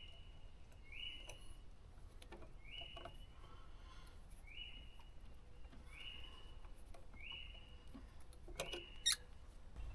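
A bird repeats a short chirp that rises and then holds, about once every second and a half. Faint scattered clicks from handling wires come through, with a sharper click near the end.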